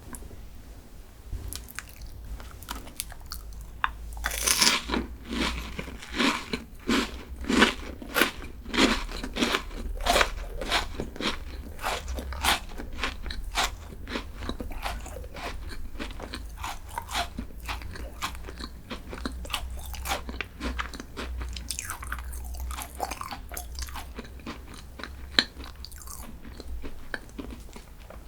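Close-miked eating of a crunchy chocolate snack: a loud crunchy bite about four seconds in, then steady crunching chews, roughly two a second, growing softer and sparser in the second half.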